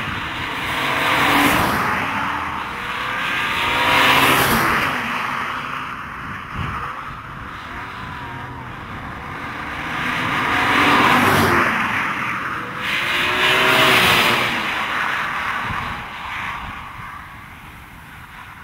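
A line of performance cars driving past one after another, about four pass-bys. Each engine swells and its pitch falls as the car goes by, with tyre noise, and the sound fades near the end as the last cars drive away.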